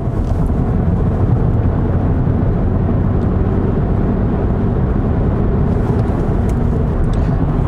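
Steady engine and road noise of a Volkswagen Golf GTI Mk7 on the move, heard from inside the cabin: a constant low rumble.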